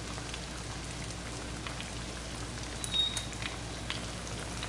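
Egg-battered chiles rellenos frying in shallow oil in a pan: a steady sizzle with scattered pops and crackles.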